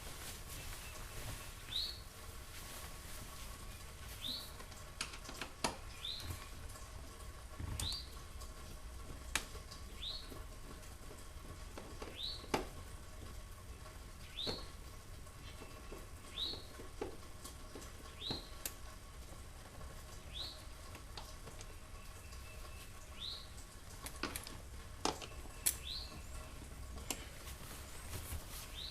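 A short rising chirp repeated every one to two seconds, like a small bird calling, over scattered sharp clicks and knocks from hand work on the door panel screws.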